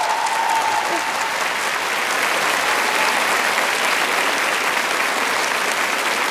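Large arena crowd applauding steadily after a song.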